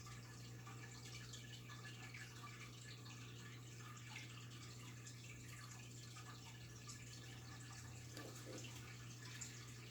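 Faint trickling and dripping of water in a goldfish tank, over a steady low hum.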